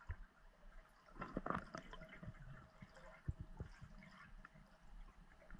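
Faint underwater water sounds heard through a submerged camera: scattered small clicks and knocks, with a short gurgle of bubbles about a second and a half in.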